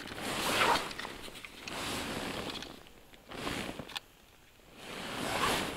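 Rustling of heavy winter clothing and handling of fishing gear by the ice hole: four or five short swishes with a few light clicks.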